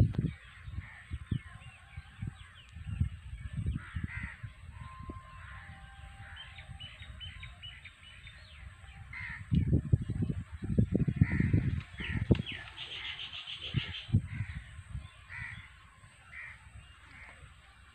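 Crows cawing over and over, about once a second, with smaller birds chirping and trilling. Bursts of low rumbling noise on the microphone come and go, loudest around the middle.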